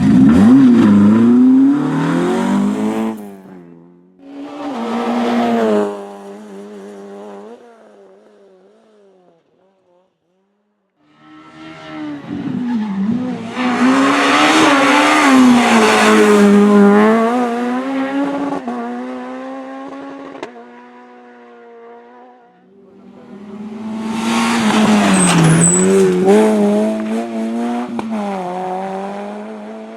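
Rally cars on a stage passing one after another, each engine revving hard with its pitch rising and dropping through gear changes as it comes in loud and fades away. There is a short lull about ten seconds in before the next car arrives.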